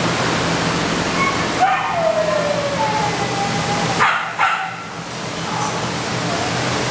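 Shelter dogs in chain-link kennels: a steady echoing din at first, then a dog whining in long falling and held tones, followed by two sharp barks just after four seconds in.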